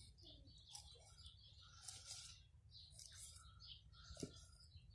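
Faint background birds chirping, with a single soft knock about four seconds in.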